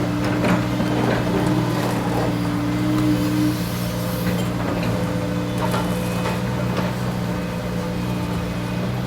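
Heavy diesel machinery running steadily, with scattered knocks and clatter of rock and sand. A higher engine tone drops out about a third of the way through.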